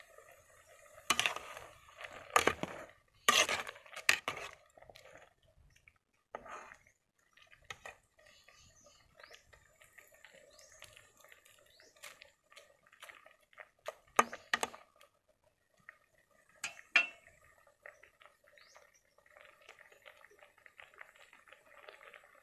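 Metal ladle clanking and scraping against an aluminium cooking pot of soup as it is stirred: a cluster of loud clanks in the first few seconds, a few more near the middle and later on, and light clinking in between.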